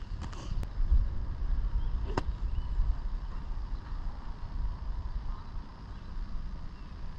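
Wind buffeting the microphone: a low, uneven rumble, with a few faint clicks in the first second and one sharp click about two seconds in.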